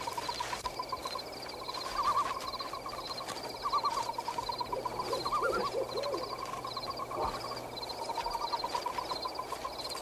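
Night forest ambience of animal calls: rapid trills that swell every couple of seconds, over a steady run of high repeated chirps.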